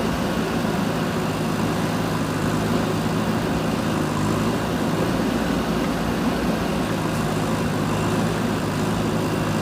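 Diesel engine of a JCB 3DX backhoe loader running steadily, with an even, unchanging hum.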